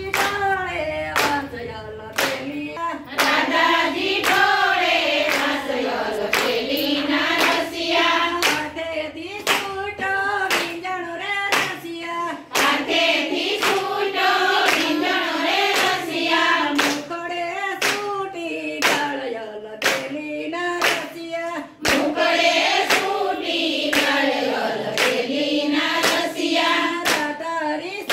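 A group of women singing a Gujarati Krishna bhajan together, clapping their hands in a steady, regular beat.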